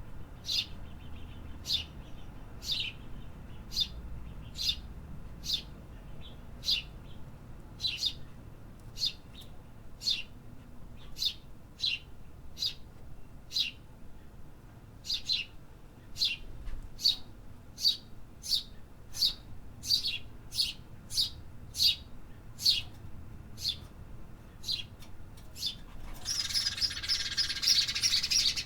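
Small city birds chirping in a steady run of short, high chirps, about two a second. Near the end it swells into a louder, dense chatter of many chirps at once.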